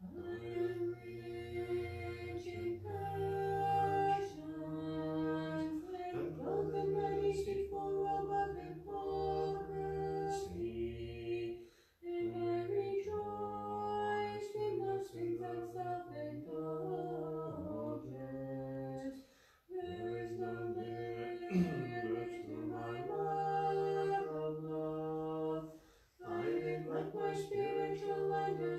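A small unaccompanied choir sings an Orthodox liturgical chant in parts. Its phrases are broken by short pauses, at about twelve seconds in, near twenty seconds and again about three seconds before the end.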